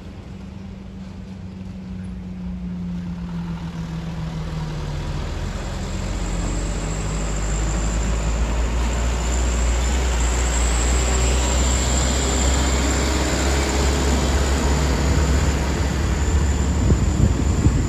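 Diesel engine of a heavily loaded sugarcane truck labouring up a steep winding climb. It grows steadily louder as the truck comes close and passes.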